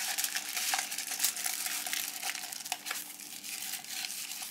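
Aluminium foil crinkling as it is rolled by hand around a paper tube: a dense run of small crackles that thins out near the end.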